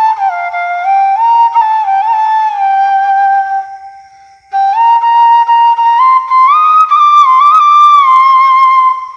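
Bamboo flute (bashi) playing a slow, sorrowful solo melody. A falling phrase settles on a held low note and fades out; after a brief pause a new phrase climbs to higher notes and comes back down.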